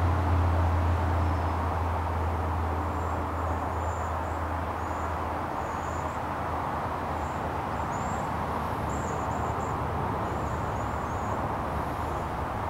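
Low rumble of a distant train fading away over the first few seconds, under a steady rushing background noise, with a small bird chirping again and again from about three seconds in.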